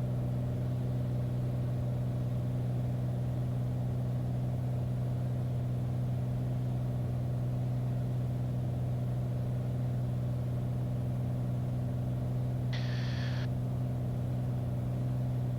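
Steady drone of a light piston-engine propeller aircraft in the cockpit on final approach, an even low hum with evenly spaced engine tones. A brief higher-pitched blip sounds near the end.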